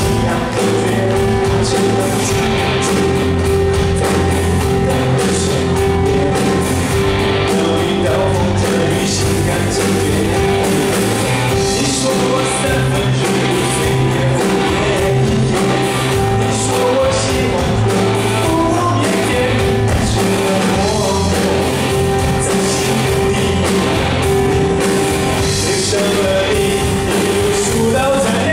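Male lead vocalist singing a Mandarin pop song into a microphone with a live band of keyboards, electric guitar and drum kit, with a steady drum beat.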